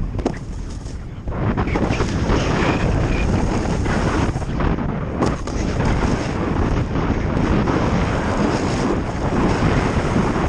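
Wind buffeting a GoPro Hero 4 Session's microphone at speed over a snowboard's base and edges scraping across groomed snow. The noise is steady except for a quieter stretch in the first second.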